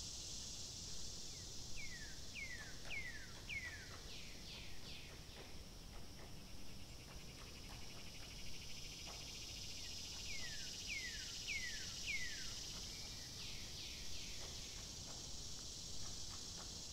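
Nature ambience: a steady high-pitched insect chorus. Over it come two runs of four short falling chirps, about two seconds in and again about ten seconds in.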